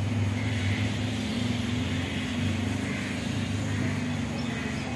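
A steady low engine drone with a light hiss, holding one even pitch.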